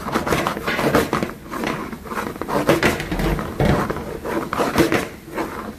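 Stir-frying zucchini, onion and dried shrimp in a large frying pan: a quick, irregular run of scrapes and clatters as the food is stirred and tossed in the pan.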